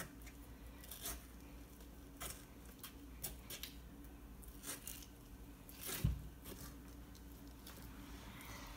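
Watermelon flesh being cut and scooped out with a metal utensil: soft wet squelching and scraping with scattered small clicks, and one stronger knock about six seconds in.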